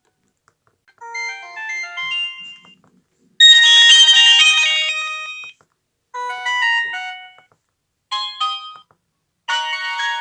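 Samsung E1202i mobile phone's built-in tone melodies: a series of short electronic jingles played one after another. Each lasts about one to two seconds, with brief silences between, and the second is the loudest. Another starts near the end.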